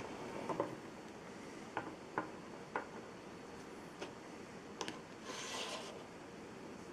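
Hands handling small plastic toys and their packaging: scattered light clicks and taps, with a short rustle a little after five seconds in.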